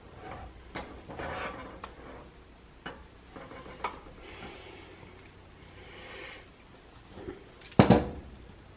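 Spatula scraping and knocking while working a sticky marshmallow mixture, with scattered light clicks and one loud knock near the end.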